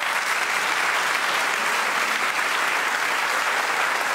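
A large audience applauding, a dense steady clapping that holds at one level.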